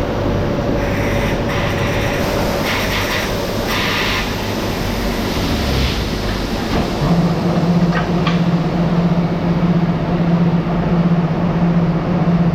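Factory machinery running with a steady, loud rumble and a few brief clatters. A strong low hum joins about seven seconds in.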